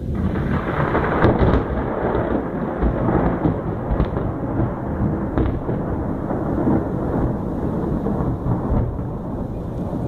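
Storm noise: a loud, continuous rumble from an approaching thunderstorm, swelling suddenly right at the start.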